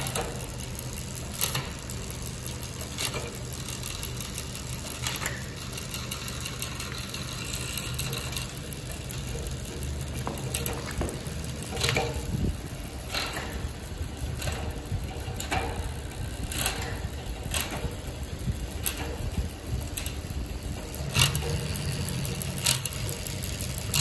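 Canyon Aeroad road bike drivetrain turned by hand in a work stand: the chain runs over the spinning rear cassette and derailleur with a steady mechanical whir, and sharp clicks come every second or two.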